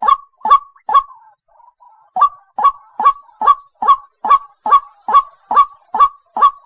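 White-breasted waterhen calling: a run of loud, sharp, evenly spaced notes, about two to three a second, broken about a second in by a pause of roughly a second that holds only a few faint, softer notes before the run picks up again.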